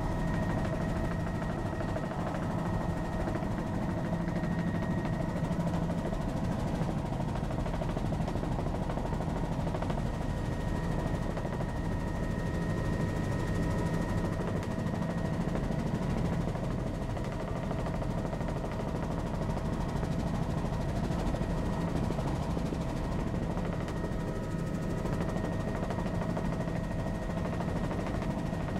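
Helicopter in steady flight: constant rotor and engine noise with a rapid beat of the blades under a steady high whine.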